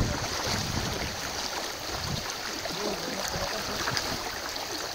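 Shallow river water running over stones, with splashing as a man wades in it and gathers in a cast net.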